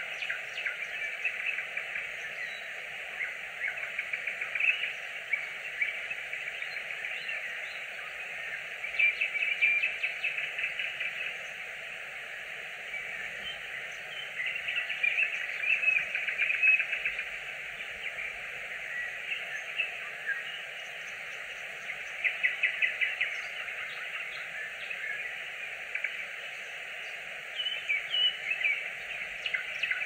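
A nightingale singing at dusk: phrases of rapid repeated notes and trills, each a second or two long, coming about every six seconds with pauses between, over a constant background hiss.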